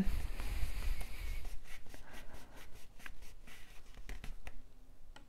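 Fingertips rubbing and pressing cardstock against the plastic base of a candy dome: a scratchy paper rustle with small crackles and ticks. Low handling bumps in the first second or so.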